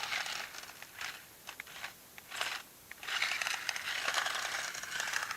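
Toy remote-control stunt car driving over grass and pavement: a crunching, rustling noise in short spurts, then a longer stretch from about three seconds in.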